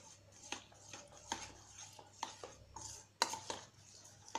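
Metal spoon stirring gram flour into thinned curd in a steel bowl, clinking against the bowl's side about once a second, the loudest clink about three seconds in.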